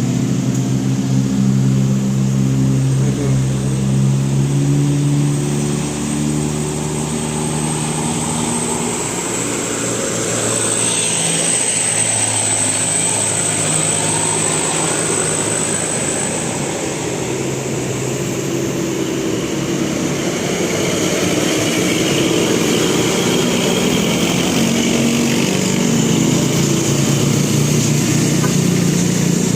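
Bus telolet (basuri) horn playing a tune of stepped notes over bus engine and traffic noise. The tune runs through about the first nine seconds and comes back in the last several seconds.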